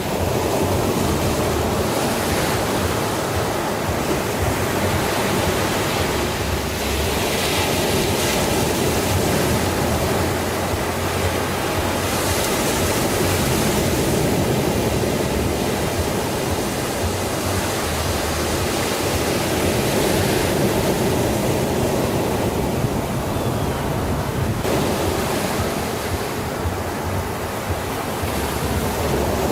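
Ocean surf: a steady rush of waves, swelling and easing, with brighter hissing washes now and then.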